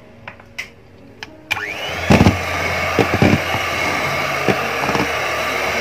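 Electric hand mixer switched on about one and a half seconds in, its motor whining up to speed and then running steadily as its beaters mix cake batter, with a few knocks just after it starts.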